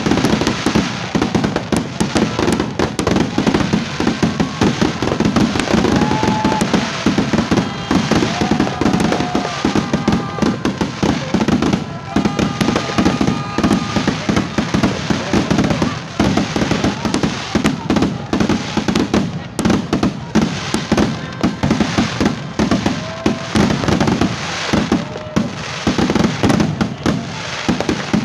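New Year fireworks going off in a dense, continuous barrage of rapid, overlapping bangs and crackles, with no break.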